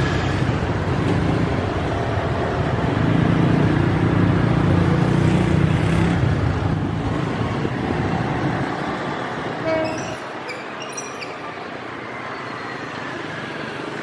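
A diesel locomotive-hauled train passing close by, its engine rumbling loudly. The rumble fades away about nine seconds in, and a few brief high-pitched sounds follow.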